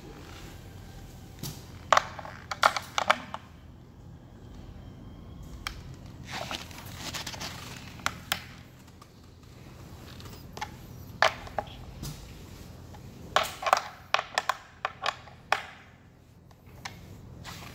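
Skate T-tool socket clinking and scraping on a skateboard truck's kingpin nut as it is fitted and turned to loosen the truck: clusters of sharp metal clicks with a stretch of scraping in the middle.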